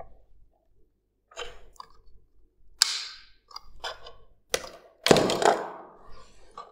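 A few sharp clicks and knocks from a switch being worked and a magnetic jumper, a coil of wire on a cardboard tube, snapping off a neodymium magnet. The loudest knock, about five seconds in, rings briefly as the coil lands on the wooden table.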